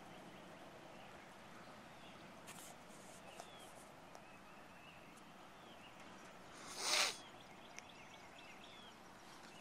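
A single short splash on the lake water about seven seconds in, over quiet open-air background with faint scattered bird chirps.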